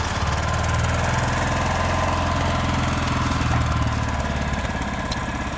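Argo 6x6 amphibious ATV engine running steadily as the vehicle works through mud.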